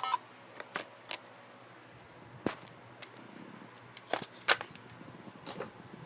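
The Mario alarm clock's electronic tune cuts off right at the start, followed by scattered sharp plastic clicks and knocks, about seven of them, from handling the clock and its batteries.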